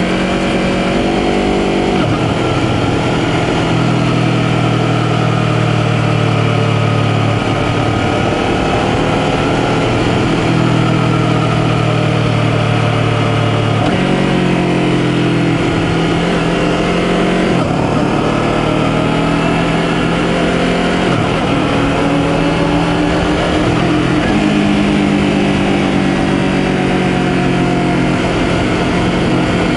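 2020 Honda CBR250RR's parallel-twin engine running under way, heard from on board. Its note climbs and drops several times with throttle and gear changes, including engine braking on a closed throttle. Steady wind rush runs underneath.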